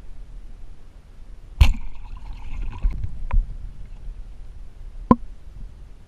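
Sharp knocks heard underwater: a loud one about a second and a half in, followed by about a second of rushing hiss, then two more single clicks.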